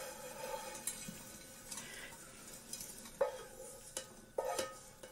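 A utensil scraping and knocking against a frying pan as chopped fish fingers are scraped out into a ceramic baking dish, with a few sharper knocks in the second half.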